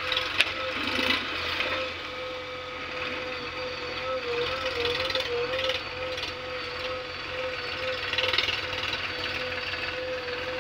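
Tractor engine running under load with a steady, slightly wavering whine as it tries to back a loaded trolley up rain-slick ground: the wheels are slipping and it won't go back.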